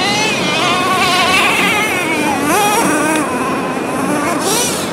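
Gas-powered RC car's small two-stroke engine buzzing at a high pitch, its note rising and falling as the throttle is worked. The note dips about two and a half seconds in, then climbs again.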